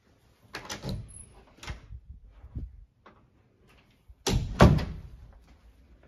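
Bifold closet doors being handled: a few knocks in the first three seconds, then a louder double bang a little over four seconds in as a door is shut.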